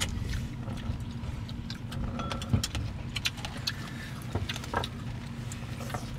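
A steady low engine hum with light, scattered clicks of chopsticks and bowls.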